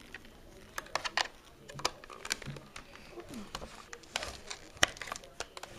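Irregular sharp clicks and crackles, about a dozen spread unevenly, over a faint hiss.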